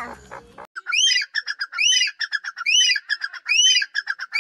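Teetar (francolin) calling over and over. A loud arched note comes about every half second, each one followed by a quick run of short clipped notes. The call starts about a second in, after a different sound cuts off abruptly.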